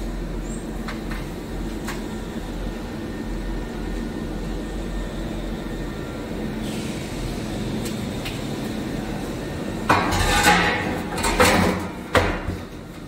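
Diffusion pump's metal jet stack being set back into the pump body: a few loud metal-on-metal scrapes and a sharp knock near the end, over a steady machine hum.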